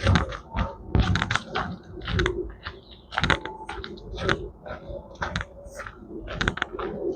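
Footsteps crunching on a trail surface, one step after another at a walking pace.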